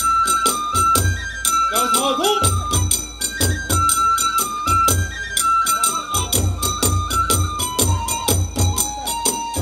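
Kagura hayashi ensemble playing for a dance: a large barrel drum beaten in a driving pattern, small hand cymbals clashing rapidly, and a bamboo transverse flute playing a stepping melody.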